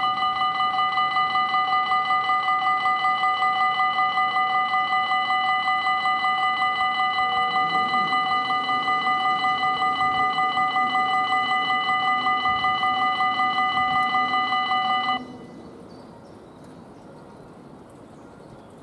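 Level crossing warning bell ringing in a rapid, even pulse of several ringing tones, warning that a train is coming while the booms lower. A fainter low hum runs beneath it in the second half, and the bell cuts off abruptly about fifteen seconds in, once the booms are down.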